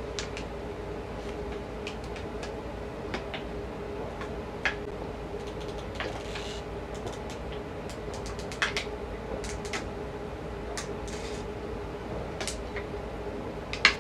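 Scattered faint clicks and crackles of a thin plastic water bottle flexing as someone drinks from it, over a low steady hum.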